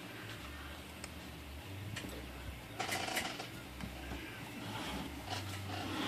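A few light clicks and knocks from an Underwood Noiseless typewriter being handled and tipped over, with the loudest cluster about three seconds in and another near the end.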